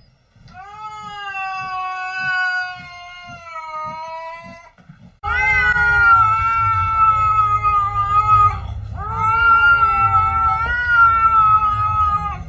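Domestic cat yowling in three long, drawn-out wails of about three to four seconds each, the first sliding slowly down in pitch. A low rumbling noise starts about five seconds in and runs under the second and third wails.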